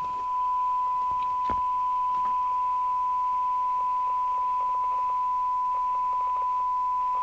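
Steady 1 kHz test tone from a signal generator, received and played through the speaker of a Kernow Beta 2100 UK FM CB radio with its squelch open, over a light hiss. A faint click about one and a half seconds in.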